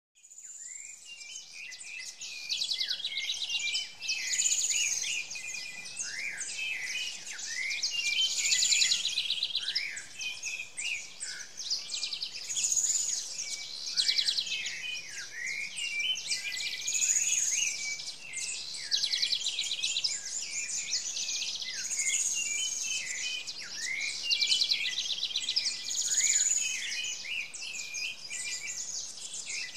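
Songbirds singing: high, rapid trilled phrases with sharp chirps and down-slurred whistles, repeated about every four seconds. The sound fades in over the first couple of seconds.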